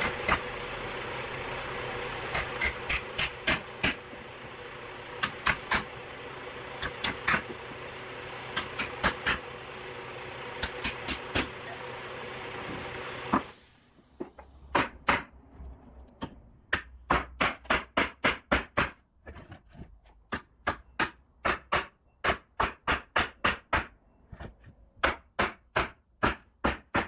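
Woodworking: a machine runs with a steady hum, with knocks on wood here and there. About halfway through the hum stops suddenly, and steady hammering follows at about two blows a second.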